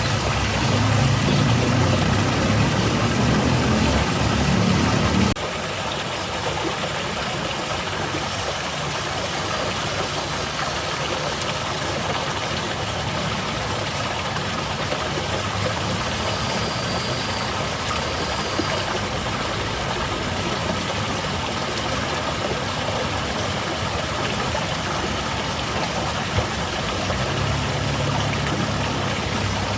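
Small waterfall splashing steadily. A low engine-like rumble sits under it for about the first five seconds, stops suddenly, and comes back near the end.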